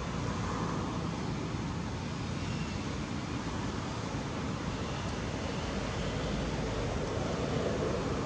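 Steady outdoor background noise: an even rush with no distinct events.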